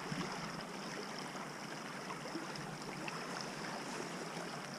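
Steady rushing of a shallow river current flowing over riffles.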